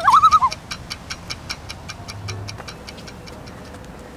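Ticking clock sound effect, about five even ticks a second, fading out near the end. A short warbling tone sounds at the very start.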